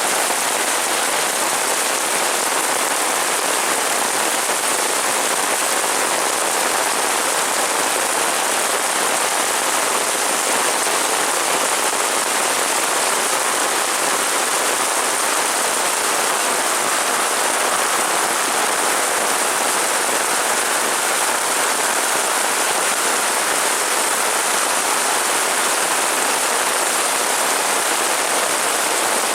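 Heavy rain falling steadily, an even unbroken hiss with no change in strength.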